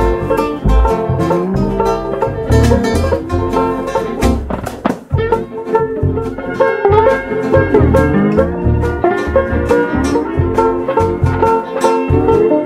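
Instrumental background music: quick plucked-string picking over a pulsing bass line.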